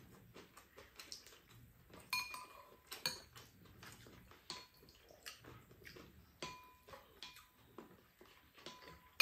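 Metal spoons clinking and scraping against ceramic bowls and a frying pan while eating. Scattered light clinks that ring briefly, the clearest about two and three seconds in.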